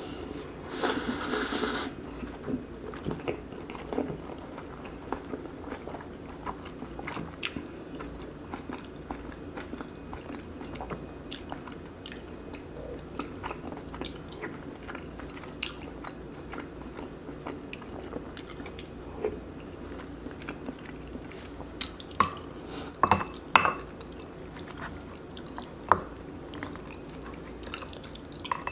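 Close-miked chewing of soft braised pork belly, kimchi and rice, with many small wet mouth clicks. A short noisy burst comes about a second in, and a few sharper clinks of utensils against a bowl come near the end.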